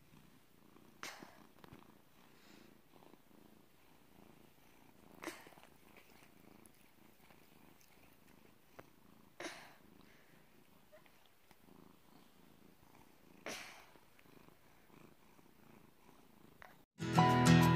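Domestic cat purring faintly, with four short louder noises about four seconds apart. Acoustic guitar music starts abruptly about a second before the end and is the loudest sound.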